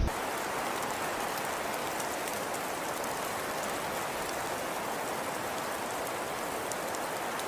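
Rain falling steadily: an even hiss with fine drop ticks.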